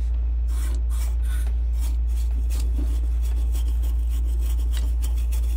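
Toothbrush scrubbing the dirt-caked aluminum heat-sink fins of a thermoelectric wine cooler: quick, scratchy back-and-forth strokes, several a second, over a steady low hum.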